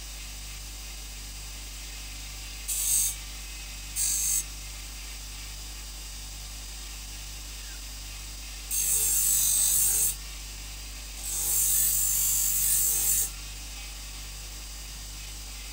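Knife edge held against a spinning felt buffing wheel on a bench grinder to strip off the burr after sharpening. Four hissing strokes: two short ones about 3 and 4 seconds in, and two longer ones of a second or two near 9 and 12 seconds in, over a steady low hum.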